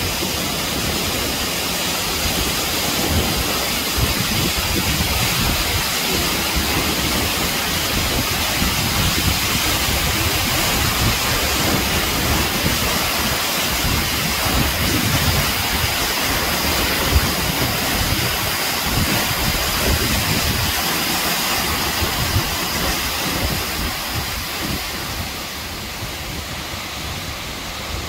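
Acquafraggia waterfall close by: the loud, steady rush of falling water and spray on rock, easing a little near the end.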